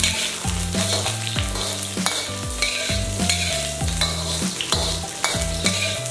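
Ginger, garlic and whole spices sizzling in hot oil in an iron wok, while a metal wok spatula scrapes and clacks against the pan again and again as they are stir-fried.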